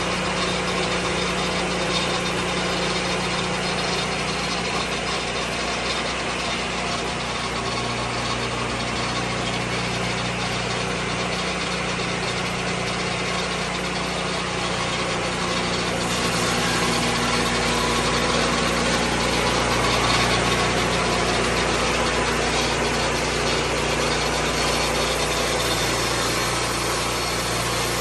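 Engine of a Lucas Mill 10-30 swing blade sawmill running steadily, growing a little louder a little past halfway.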